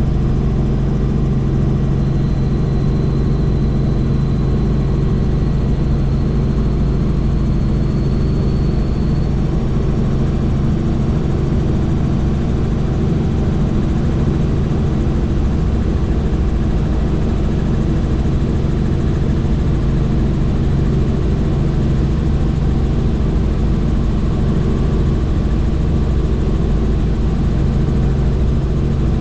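Helicopter in flight: a steady, loud drone of engine and rotor that does not change, with a faint high whine that fades out about nine seconds in.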